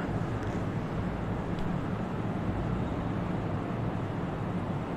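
Steady low hum and hiss of background room noise, with no distinct events.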